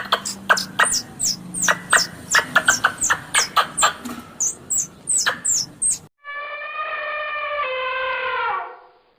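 Animal calls: a rapid series of short, high, downward-sweeping chirps, three or four a second, for about six seconds. After a sudden cut comes one long, evenly pitched call that drops slightly in pitch near the end and fades out.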